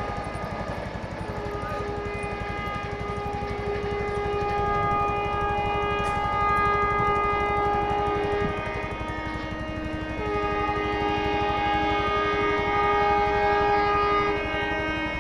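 Indian Railways train sounding its twin-tone horn in long sustained honks, two notes held together, with a brief dip about nine seconds in. The rumble of the moving train runs underneath.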